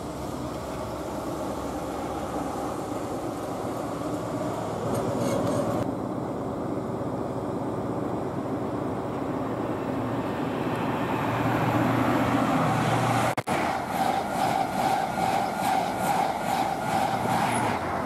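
Express passenger trains passing a station platform at speed: a steady rumble of wheels on rail that grows louder. After a brief break about thirteen seconds in, there is a rhythmic clatter of the coaches' wheels over rail joints, about three beats a second.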